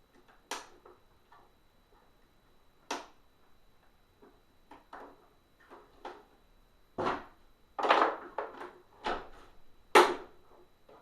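Irregular knocks and clicks of the plastic parts of a Hoover SteamVac carpet cleaner being handled and pulled apart, with a cluster of sharper knocks about eight seconds in and the loudest knock near the end.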